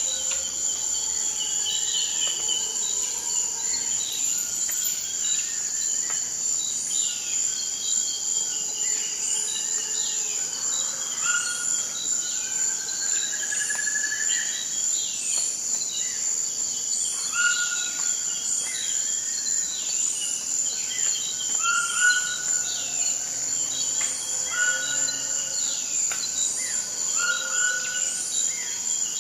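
Forest ambience: a steady high insect drone, like cicadas or crickets, under many overlapping bird calls and whistles, with a faint chirp repeating about once every second and a bit.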